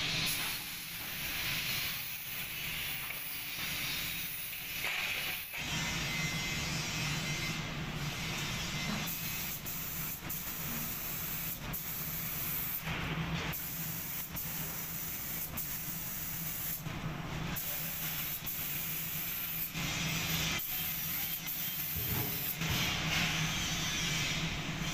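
Paint spray gun hissing steadily as paint is sprayed, with a few short breaks where the spray stops and starts again, over a steady low hum.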